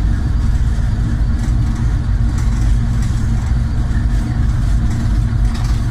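GE U40 diesel-electric locomotive's engine running steadily under power, heard from inside the cab while the train is moving: a loud, constant deep drone with faint clicks from the running gear.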